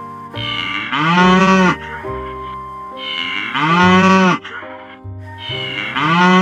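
Domestic cow mooing, three loud moos about two and a half seconds apart, each rising then falling in pitch; the third starts near the end. Background music plays underneath.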